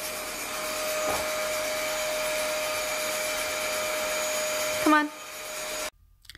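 Vacuum cleaner running steadily, a constant whir with a steady tone in it. A short vocal sound comes near the end, and then all sound cuts off suddenly.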